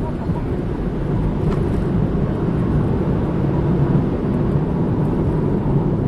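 Steady road and engine noise of a car driving on city streets, heard from inside the cabin: an even low rumble with no sudden events.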